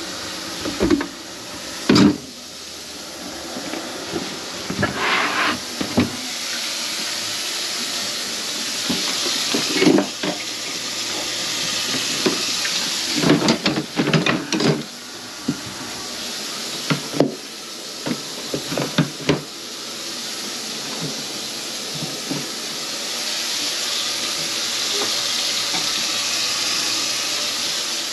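Water running from a kitchen faucet into a sink, with knocks and clatters from time to time, most in two bunches past the middle.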